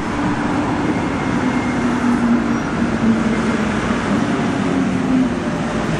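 Red double-deck regional train rolling across a steel arch railway bridge: a steady, loud rumble with a faint low hum, fading near the end.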